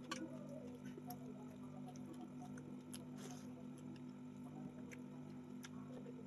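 A person chewing food with scattered soft wet mouth clicks and smacks, over a steady low hum.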